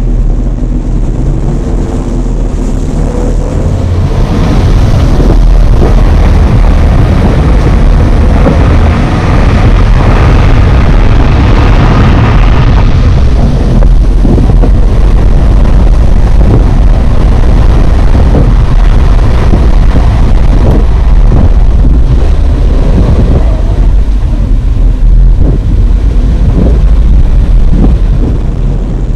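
2019 Suzuki Jimny's 1.5-litre four-cylinder petrol engine pulling the car along a rough dirt track, picked up by a microphone on the bonnet, with heavy wind buffeting and scattered knocks from the uneven ground. The engine note rises in the first few seconds.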